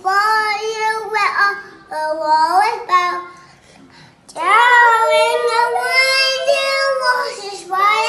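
A young child's high voice singing without clear words: short gliding phrases, then about halfway a long held note of some three seconds that bends up and down.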